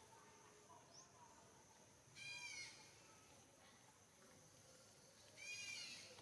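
Two short, high-pitched cries from an infant macaque, each about half a second long, about two seconds in and again near the end.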